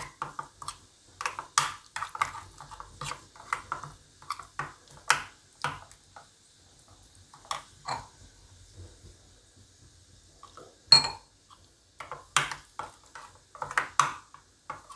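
Steel spoon stirring and scraping a thick, wet spice paste in a bowl: a run of short, irregular clicks and scrapes, sparser in the middle, with one sharper ringing clink about eleven seconds in.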